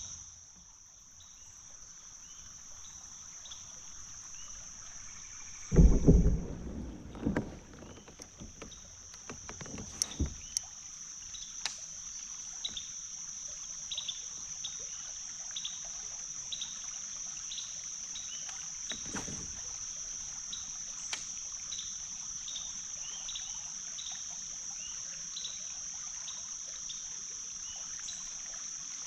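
Fishing kayak on the water: a few loud knocks against the hull about six and seven seconds in, scattered sharp clicks, and small water ticks and drips, over a steady high-pitched drone.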